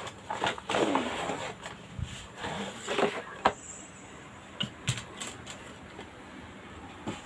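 Packaging rustling and crinkling while an unboxed item is handled, with scattered clicks and knocks that thin out after about three and a half seconds.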